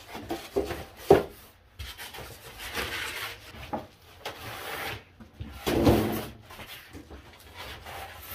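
Handling noise from unboxing a boxed tool chest top: packaging rustling and scraping, with a sharp knock about a second in and a heavier thud near six seconds.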